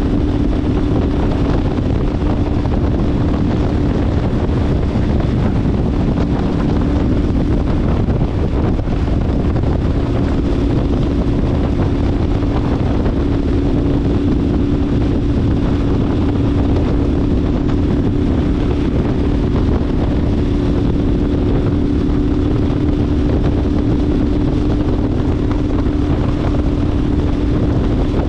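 KTM 1290 Super Adventure S's V-twin engine running at a steady cruise with a constant drone, under a heavy rush of wind over the microphone.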